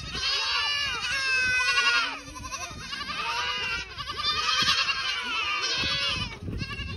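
A herd of goats, kids and does, bleating all at once: many overlapping, high, quavering calls. The kids are calling to their mothers as they are released back to them.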